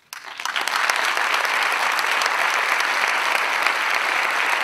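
Audience applauding: the clapping breaks out at the very start and builds within about a second to steady, full applause.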